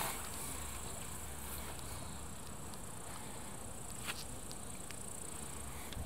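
Insects chirring steadily in a high-pitched band, with a faint click about four seconds in.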